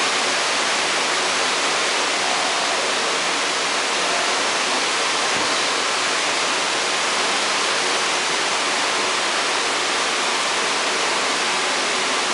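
Steady, unbroken rush of running water, an even hiss with no pauses.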